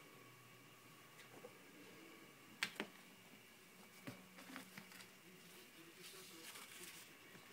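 Near silence in a small room, with two sharp knocks close together about two and a half seconds in, then a fainter knock and scattered light clicks and rustles.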